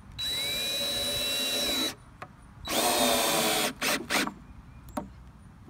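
Cordless drill driving a large wood screw into a deck board: a steady run of a little under two seconds, a pause, a second shorter run, then two quick bursts to seat the screw.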